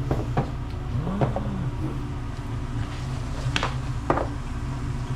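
A steady low hum with several short, sharp clicks and clinks spread through it, the strongest two about half a second apart in the second half.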